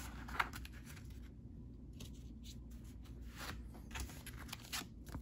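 Yu-Gi-Oh trading cards being handled and set down on a tabletop, with scattered soft taps and rustles over a faint low hum.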